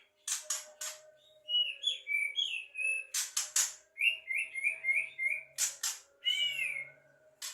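Javan myna calling: harsh rasping notes alternate with runs of short, clear whistled notes, including a quick series of five.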